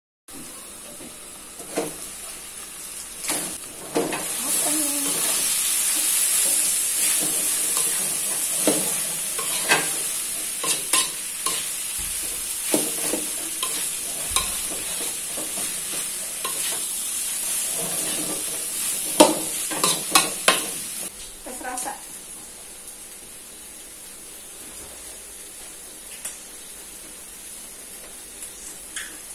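Chopped young papaya stir-frying in a pan: a steady sizzle with a spatula knocking and scraping against the pan. The sizzle fades about 21 seconds in, leaving a few scattered clicks.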